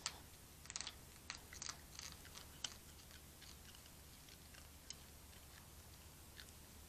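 Faint crunching and clicking of a fox and a hedgehog eating from food dishes: a cluster of sharp clicks in the first three seconds, then occasional single ticks.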